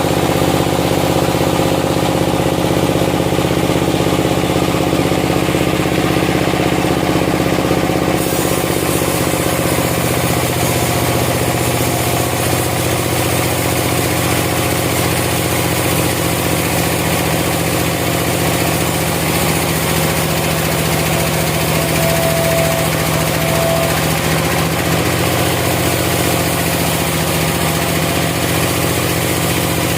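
Sawmill engine running steadily. About eight seconds in a higher hiss joins it, and its low hum shifts slightly soon after.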